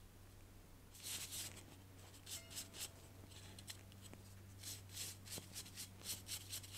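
Small bristle brush scrubbing a round plate from an electric motor's end bell in short, quick scratchy strokes. The strokes start about a second in and come in bursts, fastest near the end.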